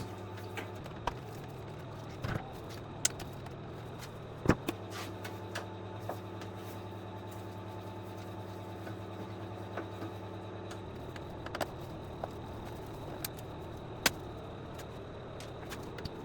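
Scattered clicks and knocks of screws, tools and hob parts being handled while a circuit board is freed from an induction hob, the sharpest knocks about four and a half seconds in and near fourteen seconds, over a steady low hum.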